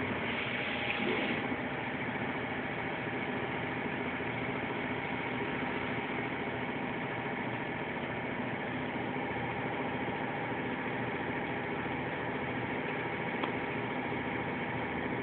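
A1-95T tissue-making machine running steadily, giving a continuous mechanical hum. A higher hiss drops away about a second and a half in, and there is one small click near the end.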